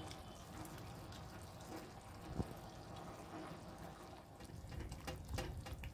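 Carrot halwa simmering in sugar syrup in a kadai, a faint steady bubbling, with a spatula stirring and scraping the pan. One sharp knock about two and a half seconds in, and a few light clicks near the end.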